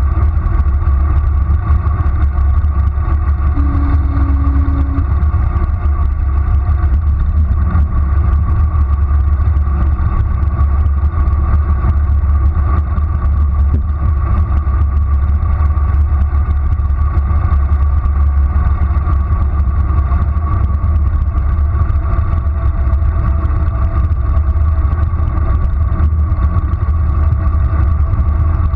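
Wind rushing over a bicycle-mounted GoPro's microphone on a fast downhill ride: a loud, steady low rumble.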